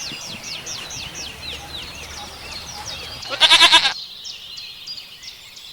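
A songbird singing a steady run of quick, high, falling notes, about three a second. About three seconds in, a goat gives one loud, wavering bleat lasting about half a second.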